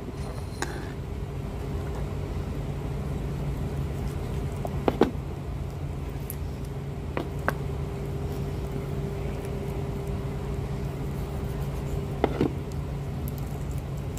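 A steady low mechanical hum, with a few sharp knocks of a knife against a cutting board as a rooster carcass is cut up: about five seconds in, seven seconds in, and twice near twelve seconds.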